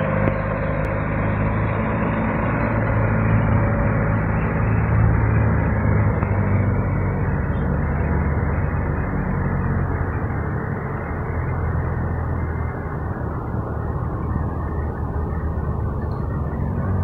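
Forklift engine running steadily as the forklift drives off, getting a little quieter in the second half.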